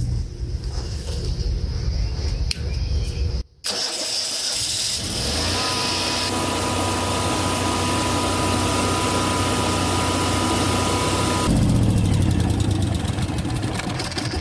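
Air-cooled engine of an early Generac home standby generator running steadily, with a thin steady whine for several seconds in the middle; it cuts out briefly about three and a half seconds in. The generator is putting out frequency but almost no voltage, which the technician puts down to a failed voltage regulator.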